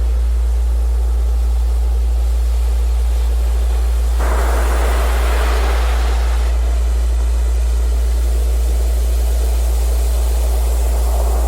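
Surf with waves washing in, over a steady low tone that does not change. One wave surges in about four seconds in and falls away by about seven seconds, and another builds near the end.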